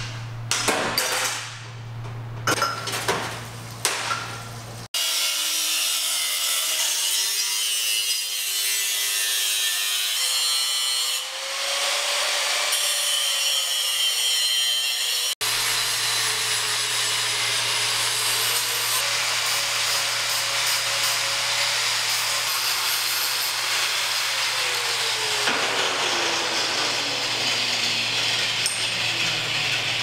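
An angle grinder cuts and grinds the cam cover of a 2009 Harley-Davidson Sportster 1200. It makes a steady, hissy grinding with a motor whine that wavers in pitch as the disc loads up, and the whine slides down near the end. A few sharp metal clanks come in the first seconds.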